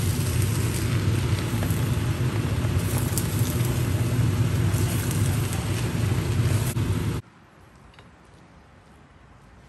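Stir-fried pancit canton noodles sizzling in a hot pan as they are tossed with a spatula, with light scrapes and clicks over a steady low hum. The sound cuts off suddenly about seven seconds in, leaving faint room sound.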